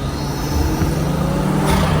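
BMW M340i's turbocharged 3.0-litre straight-six, fitted with an aftermarket intake, running loudly under load with a steady engine note.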